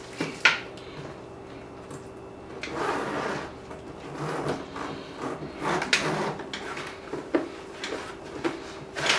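Leather weekender bag being handled and its top zipper drawn open, a noisy stretch of zipping about three seconds in, with scattered clicks and knocks from the metal hardware and leather.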